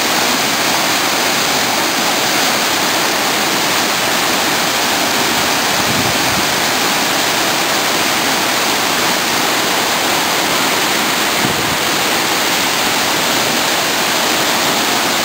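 Waterfall's water falling with a loud, steady rush.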